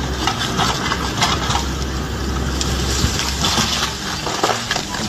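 A dense, noisy clatter with many sharp knocks, over a low engine rumble that stops about three seconds in.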